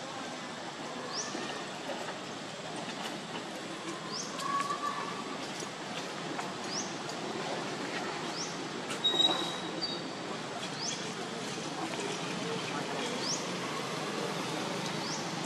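Outdoor ambience: a steady noisy background with a short, high rising chirp repeated every couple of seconds, and a brief louder sound about nine seconds in.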